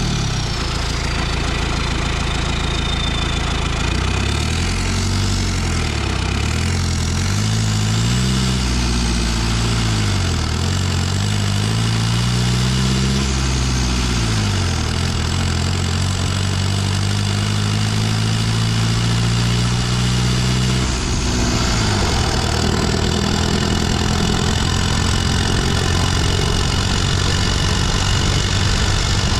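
Cummins 4BT 3.9 L four-cylinder turbo-diesel running under load on the road, its note climbing and dropping several times before holding steady. A thin high turbo whistle rises and falls above the engine.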